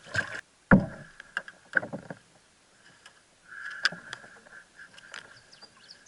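Knocks and clatter on a plastic fishing kayak as things are handled on board, with one sharp thump about a second in.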